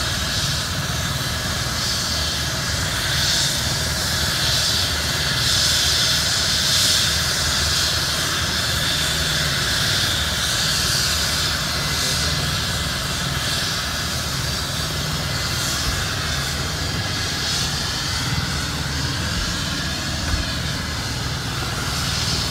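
Medical helicopter running on the ground with its rotor turning: a steady turbine whine over the rotor's low noise.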